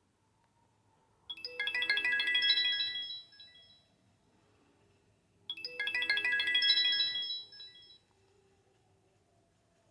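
Samsung GT-E3300L mobile phone ringtone: a short chiming melody of bright, high notes, played twice, each phrase about two seconds long with a pause of about two seconds between them.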